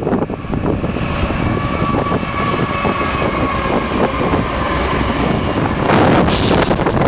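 BNSF GE ES44C4 diesel-electric locomotives with GEVO-12 V12 engines passing close at track speed. Their engines make a deep rumble with a steady whine above it, followed by the wheels of the loaded container cars on the rails. A loud rushing hiss comes in near the end.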